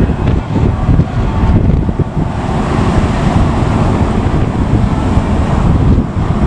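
Wind buffeting the microphone: a loud, gusty rumble with no clear tone.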